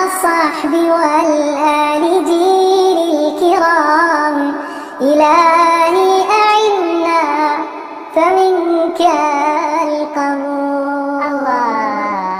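A child's voice singing an Arabic nasheed in long, drawn-out phrases that waver in pitch, with short breaks between phrases.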